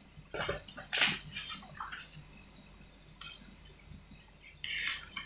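Paper and plastic rustling and crinkling in several short bursts as a paper worksheet is handled and laid down on a shiny plastic tablecloth.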